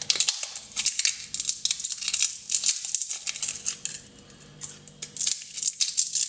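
Dry bay leaves being crushed into small pieces: a quick, irregular run of crisp, dry crackles.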